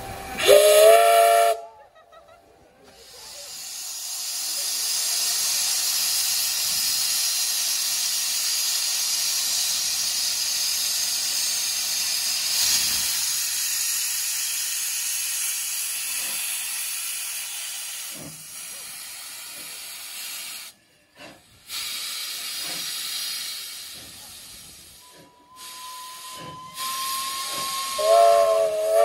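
Steam locomotive's whistle sounds briefly about a second in, followed by a long loud hiss of steam blowing from the open cylinder drain cocks as the engine starts to pull away, easing off in the second half. A second whistle blast comes near the end.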